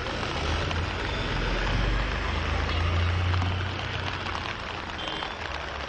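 Diesel fire truck driving past on a wet road, its low engine rumble swelling and then fading, over a steady hiss of rain and tyres on wet asphalt.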